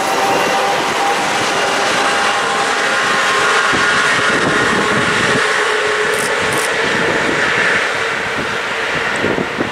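Two coupled railway locomotives running light past at speed: a steady whine over wheel and rail noise, loudest midway, easing near the end as they move away.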